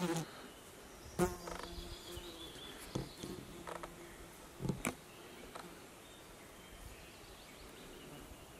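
A flying insect buzzing in short passes during the first half, its steady low drone broken off and resumed, with a few sharp clicks; afterwards only faint outdoor background.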